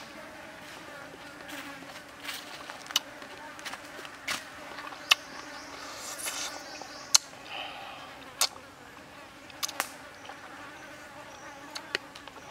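Steady buzzing of flying insects, broken by a dozen or so sharp, irregularly spaced mouth clicks and smacks from close-up chewing of fried frog.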